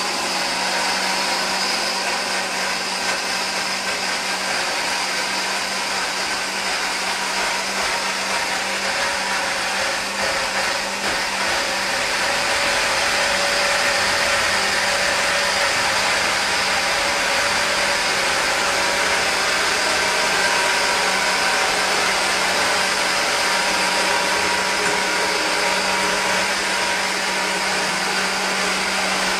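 Countertop blender running steadily, its motor grinding beans with little water into a thick batter. It gets a little louder about twelve seconds in.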